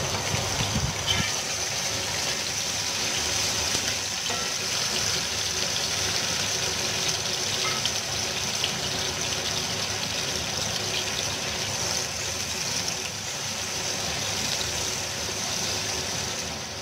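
Freshly added raw sliced onions frying in cooking oil in a pot, giving a steady sizzle, with light scrapes of a silicone spatula stirring them now and then.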